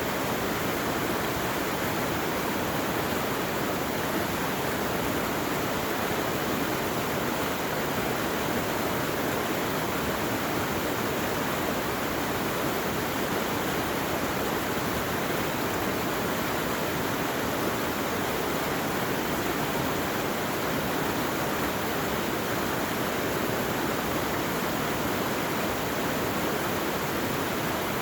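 Water rushing steadily, as from a fast-flowing stream or cascade, an even hiss with no breaks or separate events.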